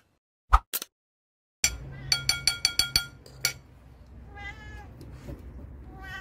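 Domestic cat meowing twice, two short high calls about two seconds apart, in the second half. They follow a quick run of sharp, ringing metallic clinks.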